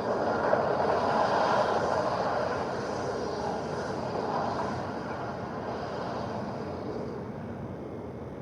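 Film tornado sound effect: a dense rushing wind roar that fades out gradually.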